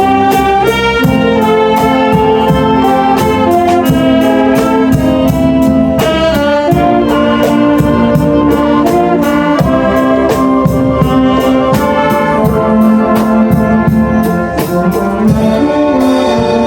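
Wind band playing an instrumental passage, with brass carrying the sustained melody and chords over a steady percussion beat.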